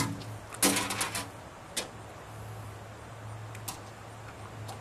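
Tape measure being pulled out and handled: a quick run of sharp clicks about a second in, then a few single clicks.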